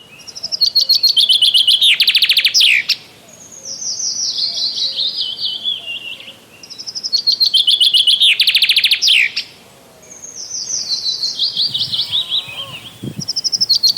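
A songbird singing in repeated phrases: a fast high trill ending in a rapid rattle, then a series of notes falling in pitch, the pair of phrases coming round twice.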